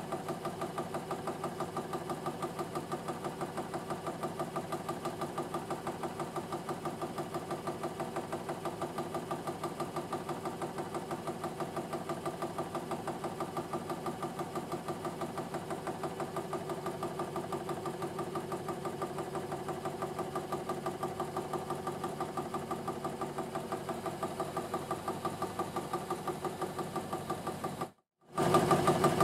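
3D-printed half rhombic drive Stirling engine running steadily, a regular mechanical beat of about four to five pulses a second over a hum of several steady tones; the engine is at the start of its running-in. It drops out for a moment near the end and comes back louder.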